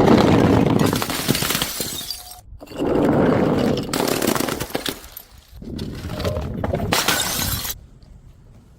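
Glass bottles smashing and their shards scattering and tinkling, in three separate crashes of about two seconds each with abrupt short gaps between them.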